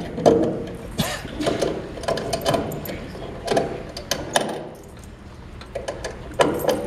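A metal lock on a wooden chest being worked open by hand: irregular clicks, rattles and knocks of the lock mechanism.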